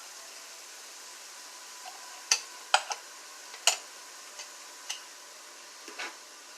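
Pepper, onion and ground turkey sizzling steadily in oil in a frying pan, with about half a dozen sharp clinks of a utensil against the pan as the food is stirred.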